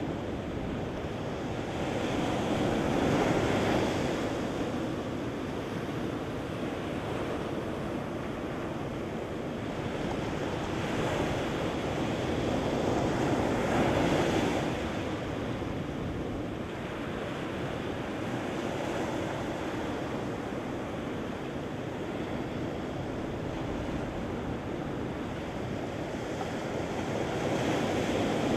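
Ocean surf breaking and washing up a sandy beach: a steady rushing wash that swells each time a wave breaks, loudest about three seconds in, midway, and near the end.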